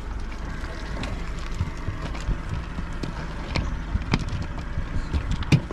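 Steady low rumble aboard a small boat, with a few sharp knocks and clicks on the hull as a stone crab trap's line and buoy go over the side.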